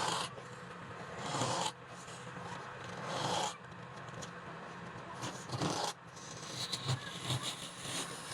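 Wood being scraped by a turning tool on a lathe: several rasping strokes, each swelling up for about a second, over a steady low motor hum.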